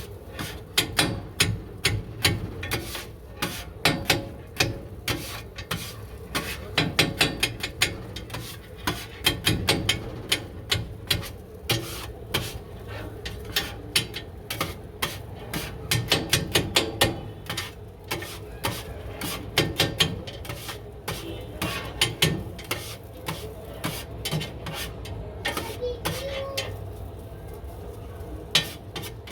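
Cooking utensils working food: runs of quick, sharp knocks mixed with scraping and rubbing, over a steady low hum.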